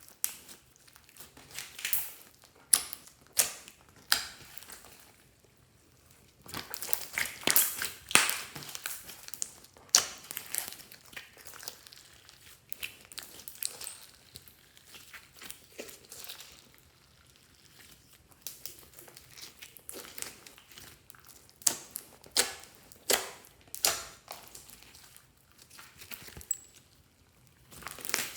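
Clear slime with many mix-ins being kneaded and stretched by hand, giving irregular sticky crackles, pops and squelches. Denser runs of crackling come in bouts, with quieter stretches between.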